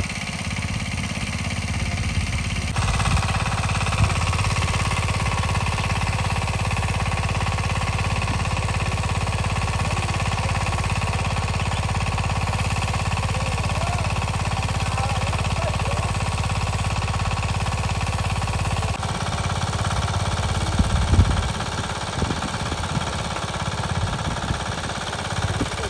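A small engine running steadily with a fast low thumping, its sound changing abruptly a few seconds in and again near the end.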